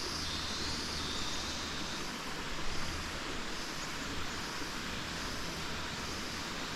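Steady rushing of a waterfall's stream, an even wash of flowing water.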